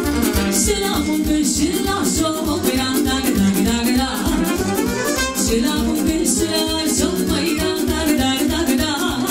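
Live Romanian folk dance music from a band: violin and saxophone over keyboard, with a fast, steady beat.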